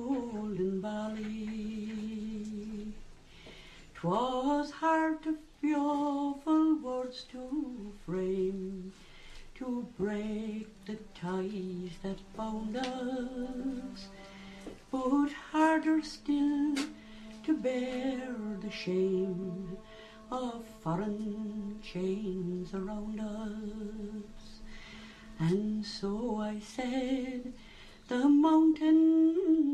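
A woman singing unaccompanied in the sean-nós style: a single voice carrying a slow, ornamented melody in long phrases, with short breaths between them.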